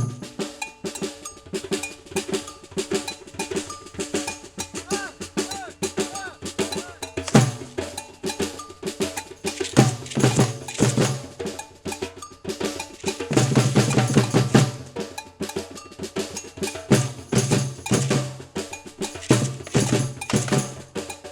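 Brazilian batucada percussion ensemble playing a dense, driving rhythm: cowbell strokes and rattling snare drums over deep bass drums that pulse in and out.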